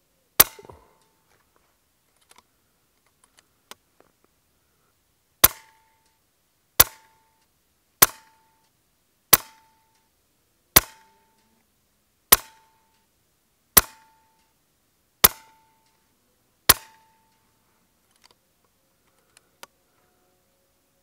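Ten shots from a Daystate Red Wolf .22 PCP air rifle firing slugs. There is one shot, then a pause of about five seconds, then nine more about one and a half seconds apart. Each is a sharp crack with a brief ringing tail.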